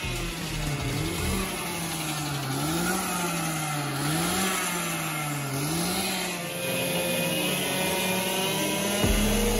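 Racing go-kart engines running on the track, the pitch climbing and dropping every second or two as the karts accelerate and slow. In the second half a steadier engine tone joins, and a louder low engine sound comes in near the end.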